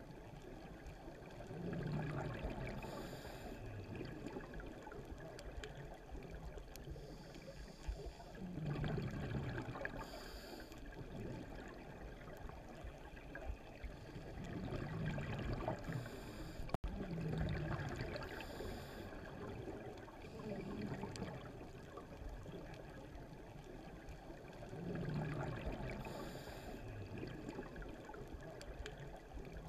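A scuba diver breathing through a regulator, heard underwater: a low bubbling rush and a short hiss about a second apart, repeating roughly every seven seconds. There is a brief dropout about 17 seconds in.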